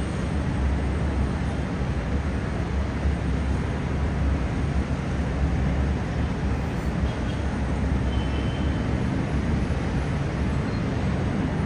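Steady rumble of heavy city traffic heard from high above, an even wash of road noise with no single vehicle standing out.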